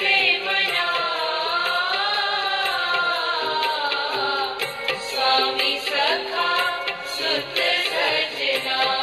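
Devotional bhajan music: a melody that glides up and down over a steady drone, with tabla-like hand-drum strokes keeping the rhythm.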